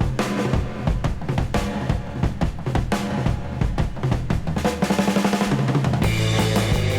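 Background music: drum-led track with a steady beat and bass, building with a quick drum roll about five seconds in, then breaking into a fuller rock section about six seconds in.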